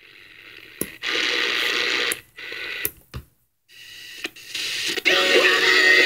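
Tiemahun emergency radio being switched between bands: sharp clicks of the slide switch and bursts of static hiss from the speaker, then a broadcast with music coming through about five seconds in.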